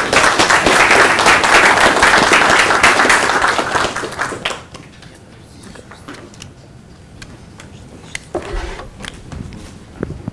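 Audience applauding, dense clapping that fades away after about four and a half seconds, followed by a few scattered claps and knocks.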